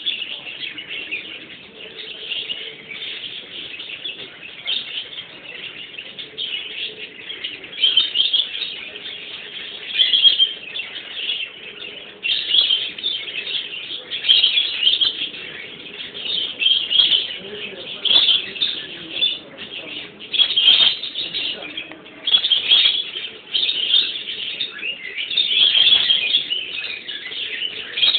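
Small birds chirping and twittering continuously, a dense chorus of high chirps with louder bursts every second or two.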